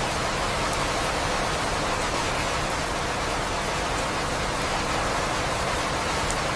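Steady rain falling, an even hiss with a couple of faint high ticks from drops.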